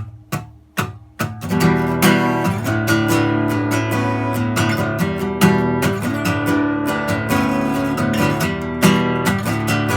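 Acoustic guitar being strummed: four single chord strums, then steady rhythmic strumming from about a second and a half in.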